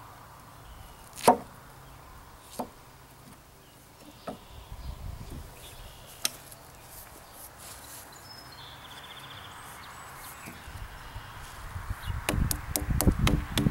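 Knife chopping a large potato in half: a few sharp knocks several seconds apart, the loudest about a second in. Near the end, music with a fast, even beat starts.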